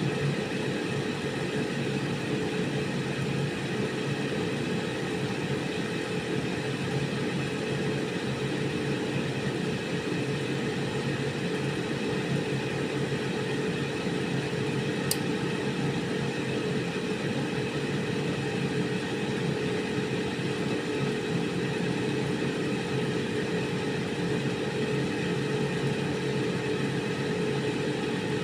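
Air fryer running: its fan and heater give a steady whirring hum with no change in speed. A single short tick sounds about halfway through.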